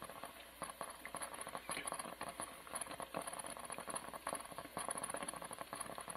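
Faint, irregular crackling and ticking from cake mix and melted butter cooking in the hot, open slow-cooker pot.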